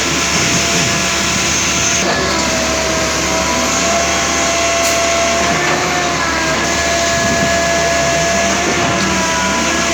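Construction machinery running steadily at a concrete bridge pour: a loud, even machine noise with a steady whine that wavers slightly in pitch around the middle.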